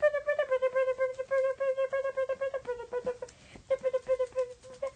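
A singing voice holding one long wordless note with a rapid pulsing tremolo, sinking slowly in pitch. It breaks off briefly about two-thirds through, then picks up again.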